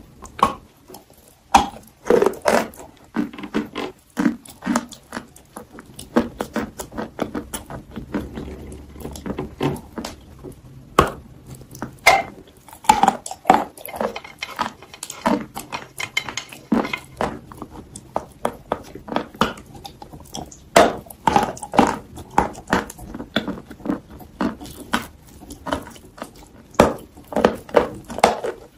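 Close-miked eating: bites into a chocolate-coated treat, then chewing with wet mouth sounds and lip smacks, heard as quick, irregular clicks.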